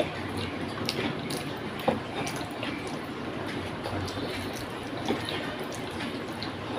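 Close-miked wet chewing and mouth sounds of someone eating rice by hand, with the soft squish of fingers mixing rice on a plate and a few sharp clicks, the loudest about two seconds in.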